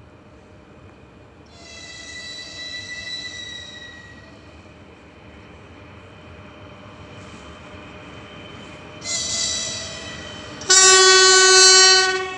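Horn of a 3ES5K Ermak electric freight locomotive as it approaches: a blast of about two seconds a second and a half in, a shorter one about nine seconds in, then a loud, deeper blast about eleven seconds in, the loudest of the three.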